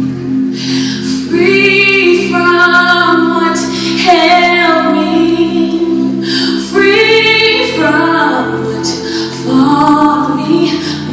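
Gospel song: a woman singing in long, gliding phrases over a steady accompaniment of low notes with an even pulse.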